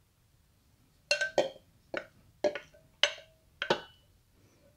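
A wooden spoon knocking against a glass container about six times, each knock about half a second apart and ringing briefly, as the last diced potatoes are knocked out into a stainless steel pressure cooker pot.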